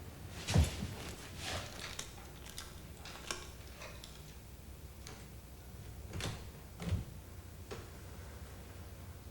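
Irregular soft knocks and clicks, about ten of them, with the loudest low thump about half a second in and another near seven seconds.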